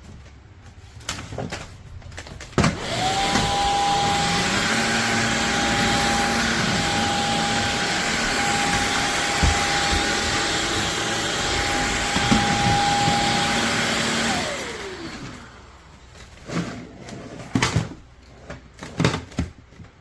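CHEBIO V18 cordless stick vacuum switched on about three seconds in. Its motor runs with a steady high whine and rushing air for about twelve seconds, then it is switched off and the whine falls away as it spins down. Clicks and knocks of handling come before and after.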